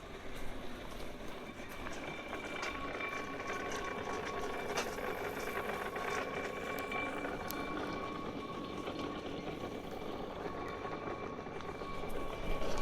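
Nishi-Shigi Cable funicular car running along its track, a steady rumble with a thin, steady high whine and occasional clicks.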